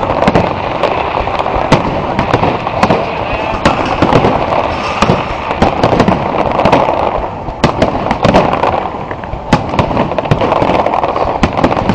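Fireworks display: a dense, continuous string of sharp bangs and crackles from bursting shells, many reports close together.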